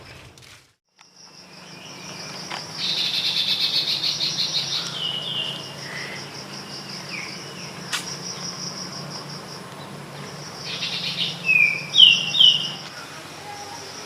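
Insects trilling steadily in a high, pulsing chorus, with birds giving short falling chirps over it, the loudest two close together near the end.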